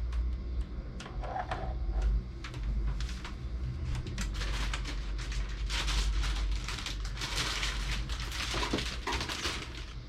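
Rummaging in a CPU cooler's cardboard box: packaging rustling and scraping, with small knocks and clicks, busiest in the middle and again near the end.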